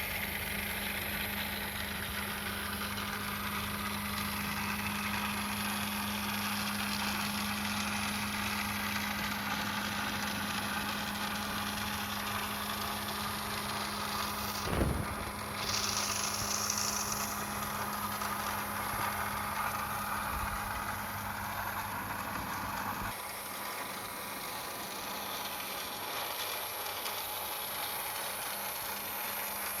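Small electric motor of a toy remote-control car running steadily with a constant hum, with a single sharp knock about halfway through; the lower rumble drops away near the end.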